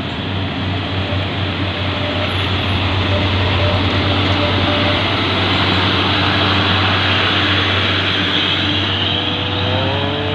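Heavy diesel truck engine running hard under load, a steady loud rumble with a low hum; near the end a rising tone comes in as the revs climb.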